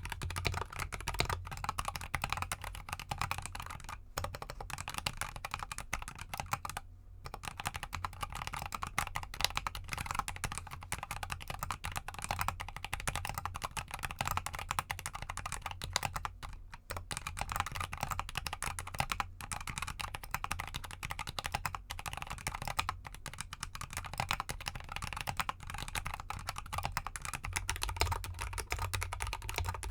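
Fast continuous typing on a GK64X mechanical keyboard with Gateron Cap Gold linear switches and XDA keycaps in an anodized aluminium case, resting on a desk mat; for most of it the case is stuffed with clay to damp the sound. The keystrokes run as a dense stream of clicks with brief pauses twice.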